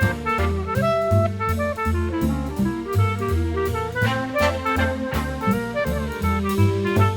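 Instrumental swing jazz with a walking bass, drum kit keeping time, and a saxophone and piano playing a Christmas melody.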